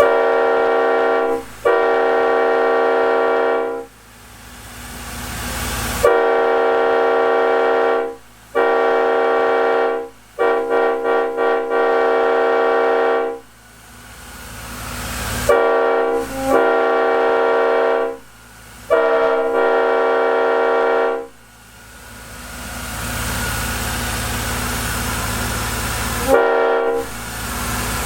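Leslie S5T five-chime train air horn sounding its chord in a series of blasts, long and short, with a run of quick toots about ten seconds in and one short toot near the end. Between blasts there is a rushing noise that swells in level.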